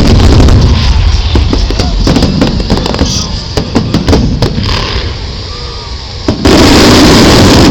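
Fireworks finale: rapid, overlapping bangs and crackles over a continuous low rumble, then a loud, continuous rush of noise for the last second or so.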